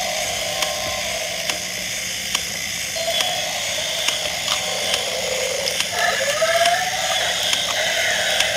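Small gear motors of battery-powered walking toys whirring steadily, with a click about once a second from the stepping mechanism. About six seconds in, a short electronic sound wavers in pitch, typical of a toy's built-in roar.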